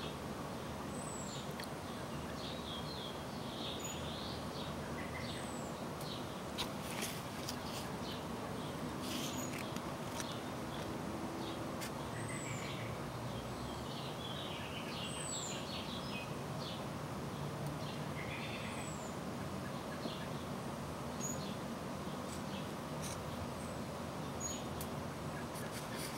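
Outdoor ambience: small birds chirping on and off, short high calls and a few brief arched whistles, over a steady background hiss and hum.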